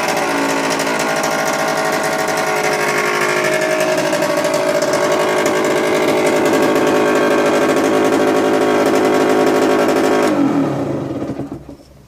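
Derbi GPR 50's single-cylinder two-stroke engine revving up and holding steady high revs for several seconds. Near the end the revs fall quickly and the engine sound dies away.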